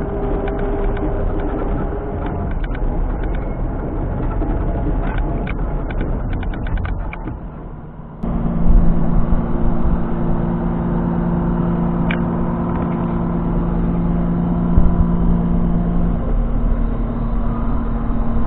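Kubota SVL97-2 tracked skid steer's diesel engine running, with scattered clicks. About eight seconds in the sound drops briefly, then jumps to a louder, steadier drone with a strong hum, as under higher revs or hydraulic load.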